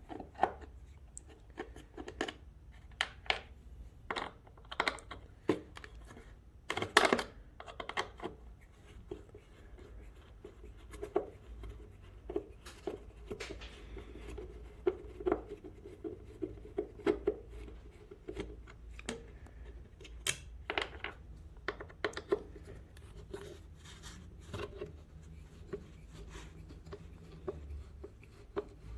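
Irregular clicks, taps and scrapes of hand work on a motorcycle's parts, with a few louder knocks now and then.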